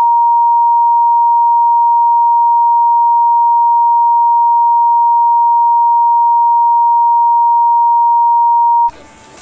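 Television test-card tone: a single steady, unbroken beep at one pitch, very loud, that cuts off suddenly near the end.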